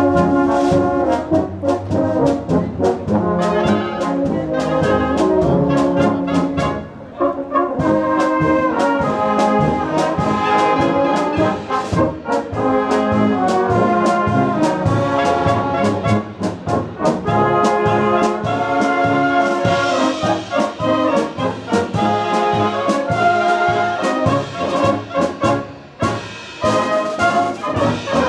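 Bohemian-style brass band (Blasmusik) playing, trumpets and trombones carrying the melody over a steady beat, with a short break in the phrase about seven seconds in.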